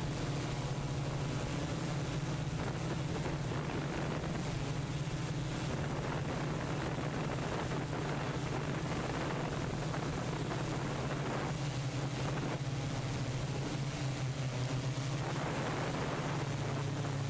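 Tarot 680 multirotor's motors and propellers humming steadily in flight, with a wash of wind noise on the microphone.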